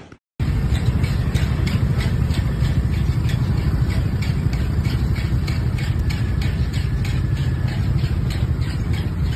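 Steady low rumble with a fast, light rattling of clicks: a road bridge shaking in an earthquake, with scooters idling in the stopped traffic.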